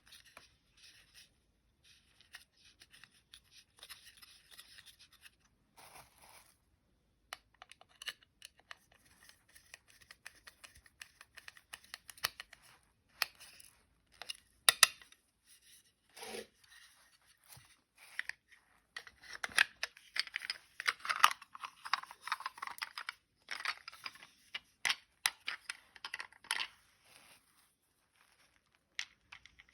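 Small plastic toy vehicle parts being handled and worked on by hand: irregular clicks, taps and scratchy scraping and rustling, busier and louder in the second half.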